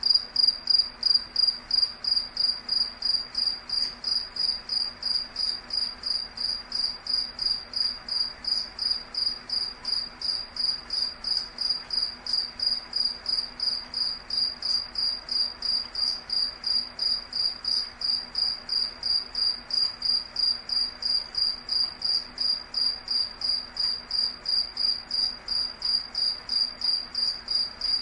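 A cricket chirping steadily, in a high-pitched, even rhythm of about three chirps a second.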